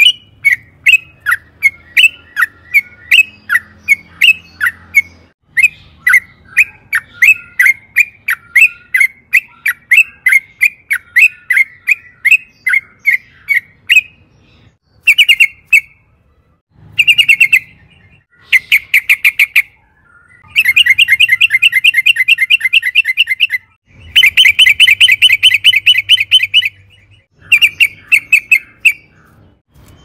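Yellow-vented bulbul singing loudly. For the first half it gives sharp, clipped notes at about three a second. It then breaks into a series of fast rolling trills, each one to three seconds long, with the longest near the end.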